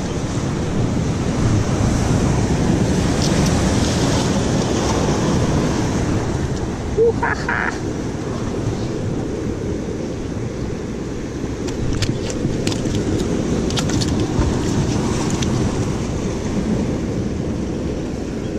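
Sea surf washing against rocks, with wind rumbling on the microphone. A few light clicks come in the second half.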